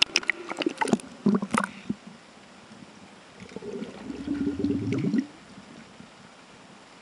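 Water splashing and gurgling around a half-submerged camera, with a quick run of sharp clicks in the first two seconds. About four seconds in, a low rasping buzz lasts over a second, then stops.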